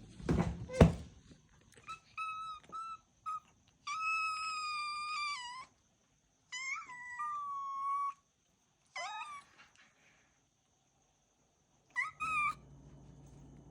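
Kittens meowing: high-pitched meows, a few short ones at first, then two long drawn-out calls, and a last short pair near the end. A few loud knocks at the very start.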